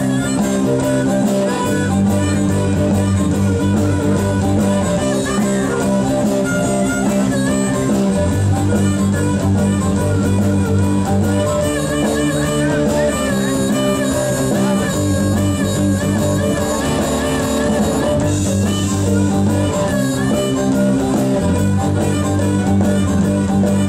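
Live blues-rock band playing an instrumental passage with no singing: loud electric guitars over bass and drums, with a harmonica played into a microphone.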